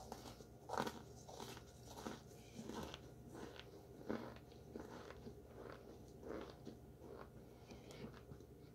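Close-up biting and chewing of chunks of baked cornstarch: a soft, crumbly crunch repeated every fraction of a second, with louder bites about a second in and about four seconds in. The batch is one the eater says didn't come out as crunchy as she wants.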